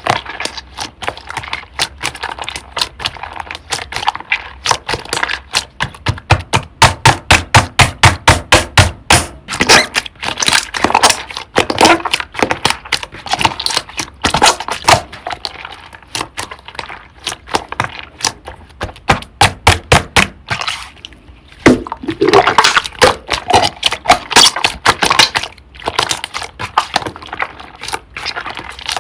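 Thick cream slime being squeezed and pressed by hand, making a fast run of sharp clicks and pops as trapped air bursts, with a few short pauses.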